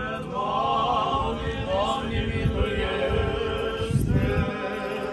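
Church choir chanting an Orthodox memorial hymn, several voices holding long, wavering sung notes.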